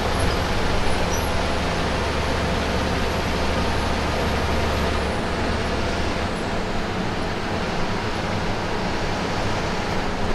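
Bus driving at speed, heard from inside the cabin: a steady mix of engine drone and road noise. The deepest part of the drone falls away about halfway through.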